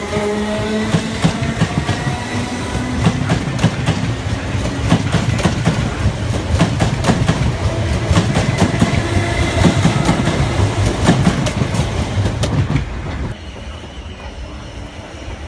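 A South West Trains Class 455 electric multiple unit passing close by, its wheels clattering over rail joints and points. A whine rises in pitch over the first couple of seconds as the train picks up speed. The noise drops sharply about thirteen seconds in.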